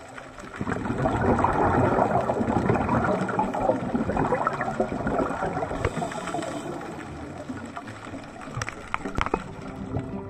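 A scuba diver's exhaled bubbles bubbling and rushing underwater. The sound swells about half a second in and slowly fades, with a few sharp clicks near the end.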